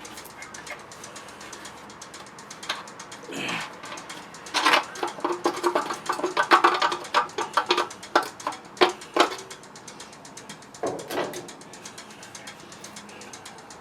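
Hand tools and metal parts clicking and clattering as a pressure washer is worked on: a quick run of rapid clicks, then a few sharp knocks.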